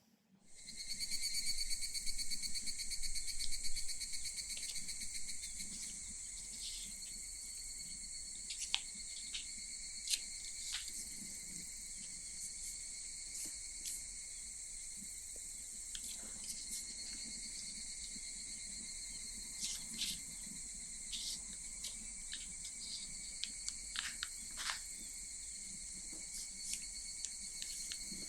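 Cicadas singing in Japanese summer, a steady high-pitched drone that swells in over the first couple of seconds. Short faint clicks are scattered through it.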